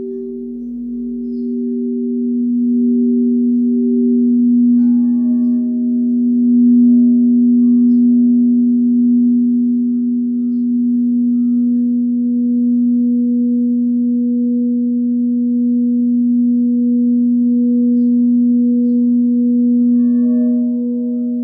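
Quartz crystal singing bowls ringing together in sustained, overlapping tones: a loud steady low tone under a higher one that pulses slowly. About five seconds in, higher bowl tones join and waver gently.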